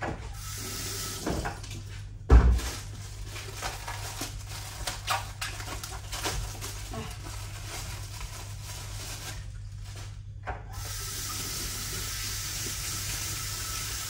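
Kitchen tap running into a stainless-steel sink while fruit is rinsed under it by hand, with scattered knocks and clatter of handling and one loud low knock about two seconds in.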